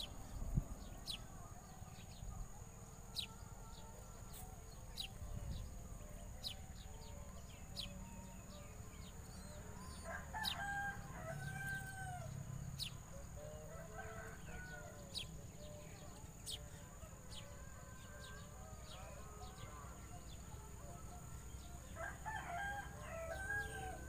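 A rooster crowing, about ten seconds in and again near the end, over a steady high-pitched whine and scattered sharp ticks.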